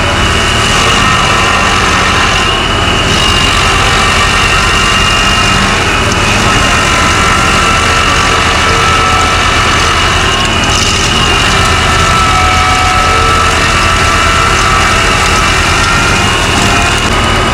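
A heavy engine running steadily and loudly, with no marked changes in speed.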